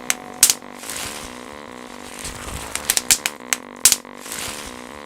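Bubble wrap being popped: irregular sharp pops, a few near the start and a cluster about three to four seconds in, over a faint sustained tone.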